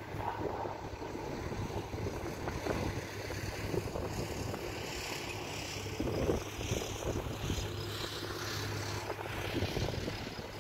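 Farm tractor engine running steadily at a distance, a constant low hum, with wind buffeting the microphone.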